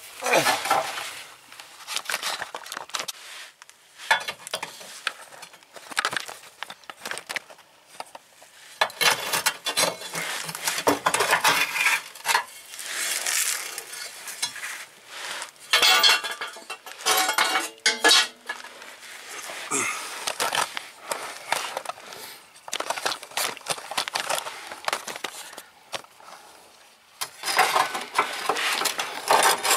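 Irregular metallic clinks, knocks and clatter of hand tools and metal parts being handled, in uneven bursts with short pauses.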